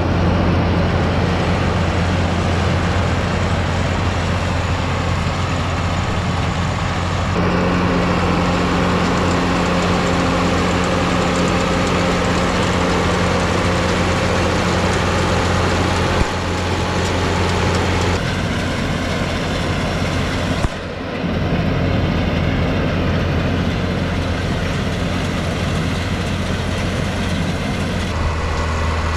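John Deere 4250 tractor's diesel engine running steadily while pulling a round baler through hay. The engine note shifts abruptly several times.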